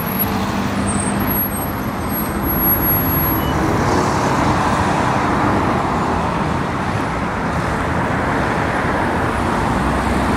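Steady road traffic on a busy multi-lane street: cars and vans driving past, engine and tyre noise blending into a continuous rumble that swells a little a few seconds in.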